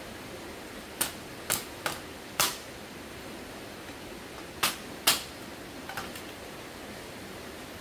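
About seven sharp knocks and cracks, irregularly spaced, as a hand tool strikes dry sticks on stony ground, over a steady background hiss.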